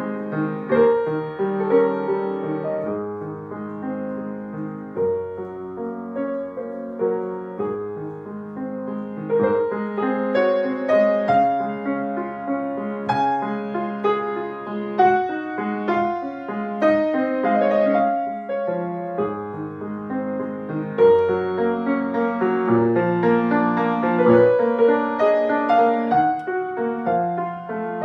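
Solo piano playing a slow, flowing passage, with low bass notes held under a melody and chords.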